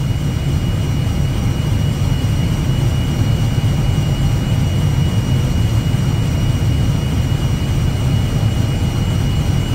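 Steady cockpit noise of an Airbus airliner on short final: a low rumble of airflow and jet engines at approach power, with a thin high whine held level above it.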